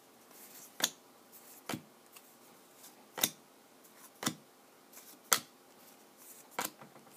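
2014 Bowman Chrome football cards being flipped through one at a time, each stiff card snapping against the next as it is moved to the back of the stack: six sharp snaps about a second apart, with faint sliding between them.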